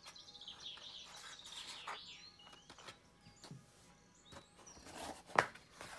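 Cardboard packaging being handled, with soft rustles and scrapes and one sharper knock about five and a half seconds in, while small birds chirp faintly in the background.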